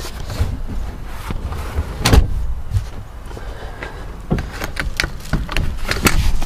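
Second-row seat of a 2005 Toyota Highlander being folded forward: a series of clicks, knocks and clunks from the seat latches and seatback, with the loudest thump about two seconds in, over rustling handling noise.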